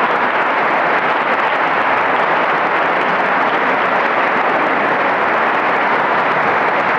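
Large audience applauding, a dense, steady clapping that neither builds nor fades.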